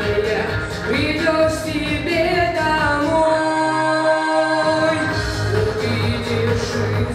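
A teenage boy singing a Russian pop song into a handheld microphone over a backing track. Around the middle he holds one long steady note while the bass of the backing drops out briefly, then the beat comes back in.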